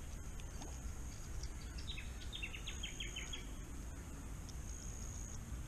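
Outdoor insect chorus: a high-pitched insect trill repeating about every two seconds over a steady low background hum, with a bird calling a quick series of about eight short chirps about two seconds in.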